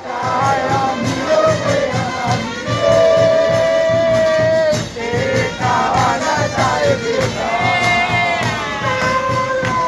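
Brass and drum music: trumpets holding long notes, one sliding down near the end, over a steady drum beat.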